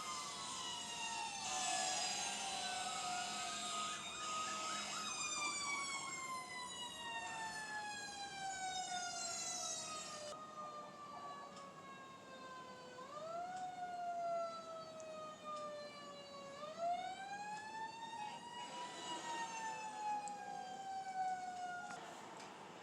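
Fire truck sirens wailing, more than one at first. The main siren glides slowly down in pitch over about ten seconds, then winds up twice in quick rises around the middle and falls slowly again near the end.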